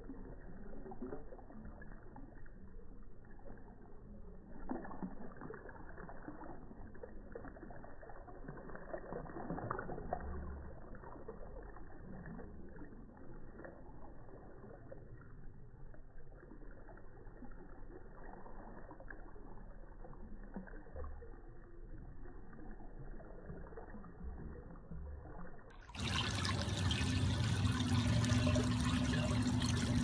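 Small waterfall spilling over a ledge into a pool, heard slowed down in slow motion: a low, muffled, steady splashing. About 26 s in it changes suddenly to louder, clearer water noise.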